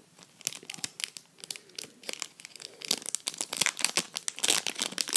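Foil wrapper of a Pokémon trading-card booster pack crinkling and crackling as it is opened and handled, a dense run of sharp crackles starting about half a second in.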